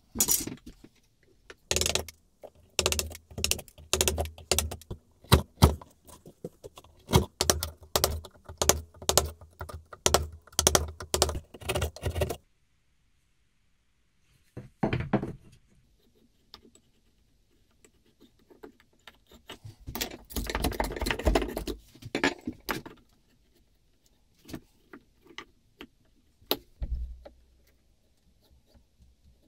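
Mallet blows on a chisel chopping a mortise into a beech plane body: a quick run of sharp knocks for about twelve seconds, then a pause, then a few scattered knocks and a short burst of scraping and rustling.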